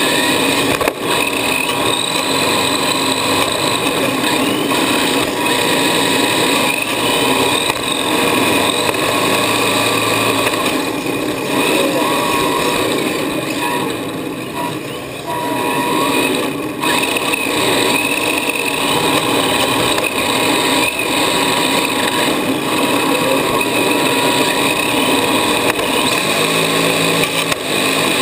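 Electric RC drift car heard from on board: its motor and drivetrain whine, the pitch rising and falling with the throttle.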